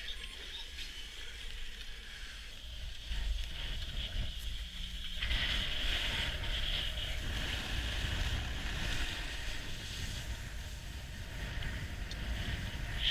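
A snowboard sliding over snow with a steady hiss, getting louder and fuller from about five seconds in, over wind rumbling on the camera's microphone.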